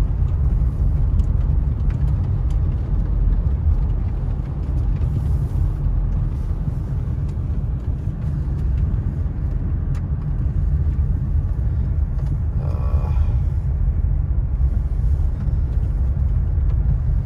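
Steady low rumble of a car's road and engine noise heard inside the cabin, with tyres running on wet pavement.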